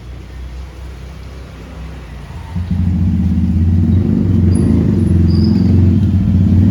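Motorcycle engine running with a low, fast-pulsing rumble that gets much louder about two and a half seconds in, then holds steady and loud.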